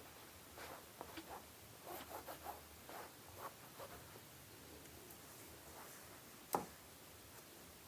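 Faint scattered rustling and scraping handling noises in a small room, with one sharp click about six and a half seconds in.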